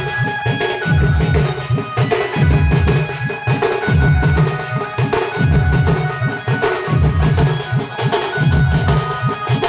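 Odia folk band music: large double-headed barrel drums beaten in a fast, repeating rolling pattern that comes round about once a second, with a high reedy wind melody above them.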